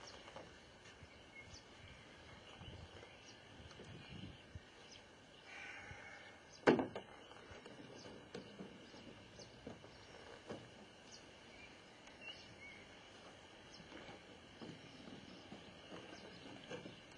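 Quiet outdoor ambience with scattered soft knocks and one sharp knock about seven seconds in.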